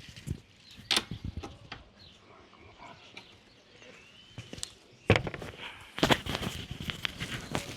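Scattered knocks and clicks of things being handled, sparse at first and turning into dense clatter from about five seconds in.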